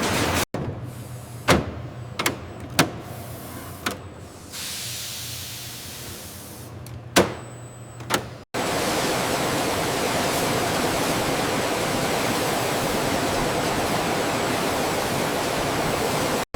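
Factory machinery: a quieter stretch with a few sharp clicks and knocks, then, after an abrupt cut, a loud steady machine noise with a low hum.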